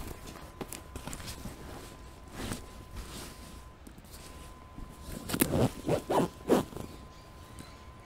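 Clothes being handled and stuffed into a backpack, with soft fabric rustling, then a run of several quick, loud zip strokes about five seconds in.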